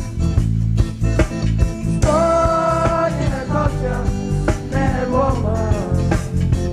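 A band playing a song with electric guitar, bass and drums over a steady beat. A voice sings a line that holds one long note about two seconds in, then moves on to another phrase.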